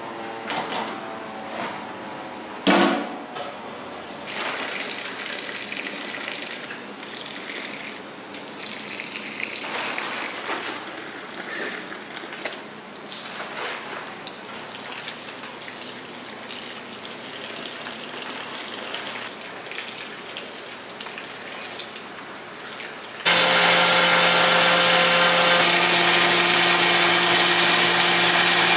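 Tap water running and splashing onto soybean pulp in a stainless steel sieve bucket, with one sharp knock about three seconds in. Near the end a machine motor starts suddenly and runs steadily, much louder than the water, with a steady hum.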